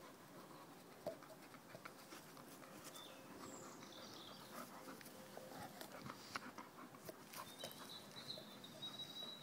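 Faint sounds of a young bull terrier at play with a toy on a lawn, heard as scattered small clicks and soft noises. A thin high tone comes in for the last second and a half.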